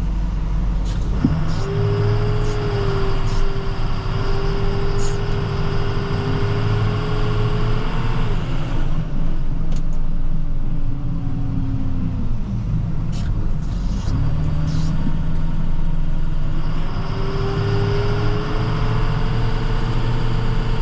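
Chevrolet Silverado 6500 plow truck driving, with its engine and drivetrain running and a constant low rumble. A steady whine comes in suddenly about a second in, sags and dies away near the middle, then picks up again for most of the rest. A few faint clicks sound over it.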